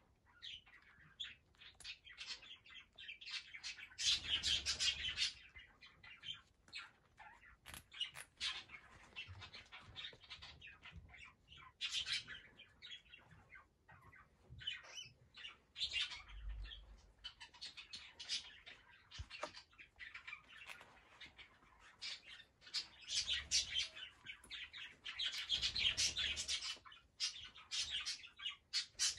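Young cockatiels moving about on sand and shells: scattered scratchy rustles and clicks, with two louder spells of dense rustling, about four seconds in and near the end.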